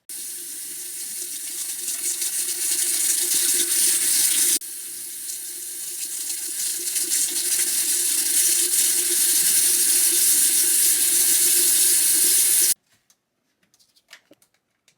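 Water running steadily from a tap, in two stretches edited together: it cuts off abruptly a little over four seconds in, resumes, and stops suddenly near the end. Each stretch grows gradually louder.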